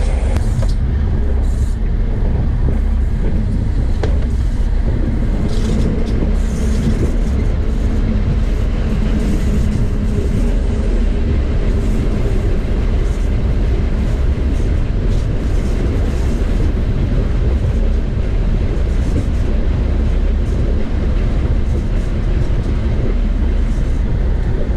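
Drone in fast forward flight, heard from its own onboard camera: a steady, loud low rumble of wind buffeting and motor noise on the microphone, unbroken throughout.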